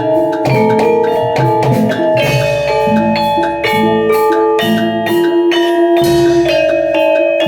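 Javanese gamelan playing jaranan accompaniment: ringing bronze metallophone notes over steady, repeated drum strokes.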